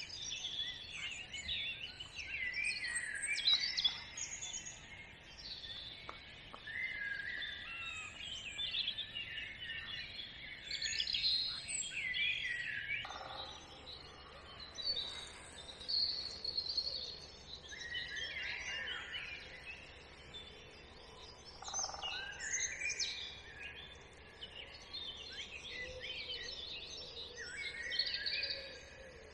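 Several songbirds singing at once in overlapping phrases, a full chorus of mixed calls and songs over a faint steady background hiss.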